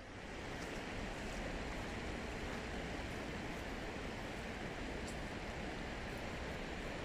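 Steady outdoor rushing noise, even throughout, with no distinct events.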